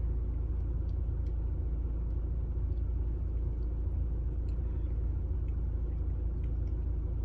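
Steady low rumble, like an idling engine or running machinery, with a few faint clicks over it.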